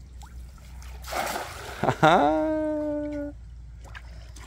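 A cast net splashing down onto the river water about a second in. It is followed by a person's long held shout, rising in pitch and then holding level for just over a second, which is the loudest sound.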